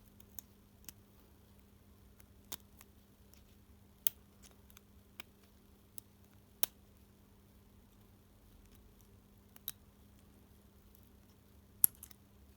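Irregular sharp clicks and light taps of small plastic and metal parts being handled, about a dozen spread out with the loudest near the end, over a faint steady hum.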